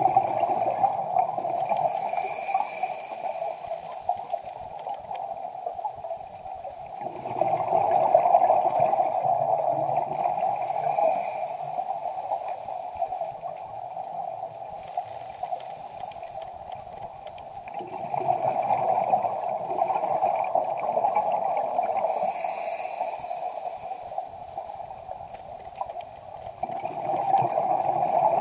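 Underwater sound of a scuba diver's breathing: gurgling bursts of exhaled bubbles from the regulator that swell for several seconds at a time, four times, about ten seconds apart, over a steady watery background.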